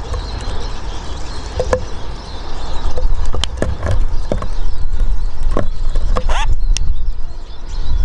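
Hawfinches at a bird table: scattered sharp ticks and clicks, with a quick rising chirp near the end, over a steady low rumble that grows louder about three seconds in.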